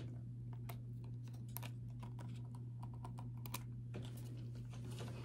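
Light, irregular clicks and taps of long fingernails on a small cardboard box of Apple Pencil tips as it is opened and handled, over a steady low hum.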